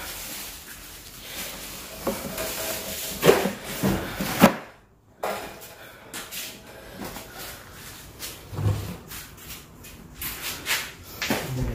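Scattered knocks, scrapes and rubbing of objects being handled around a plastic cooler box, with a brief silent break a little before halfway.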